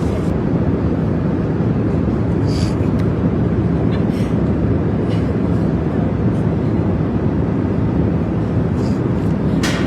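Steady, loud, low rumbling noise with a few faint short clicks.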